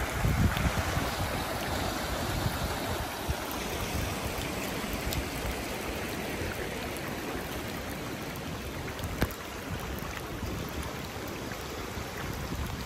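Fast-flowing floodwater rushing across grass and around tree trunks, making a steady rushing noise. There are a few low surges in the first second and a single sharp click about nine seconds in.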